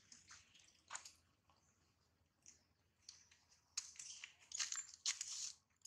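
Faint, irregular rustling and crackling, a few short dry scrapes coming in clusters, the loudest ones near the end.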